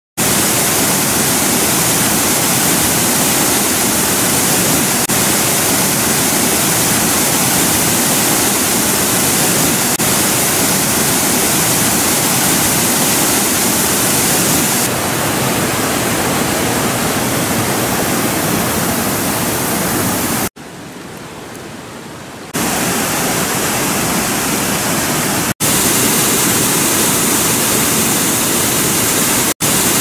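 Water pouring over a stepped concrete weir and rushing down the river channel in high flow: a steady, loud rush of falling water. It changes abruptly several times between shots, with a quieter stretch about two-thirds of the way through.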